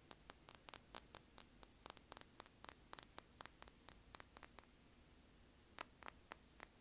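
Faint, sharp finger taps on small hard beach trinkets, about four a second. The tapping breaks off a little past halfway and resumes for a few taps near the end.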